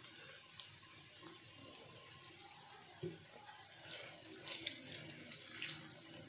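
Silicone spatula stirring stir-fried noodles in a nonstick wok: faint, with a soft thump about three seconds in, then scraping and quick soft clicks against the pan from about four seconds in.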